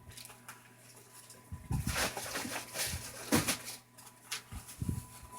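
Rustling and soft knocks from a fabric storage pack and the papers inside it being handled.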